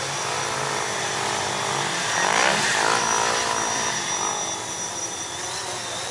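Small quadcopter drone's motors and propellers whining steadily. About two seconds in, an engine rises and falls in pitch underneath.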